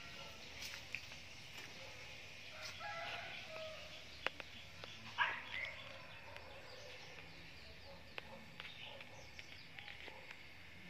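Faint chicken calls: a few clucks about three seconds in and a louder call about five seconds in, with a couple of sharp clicks.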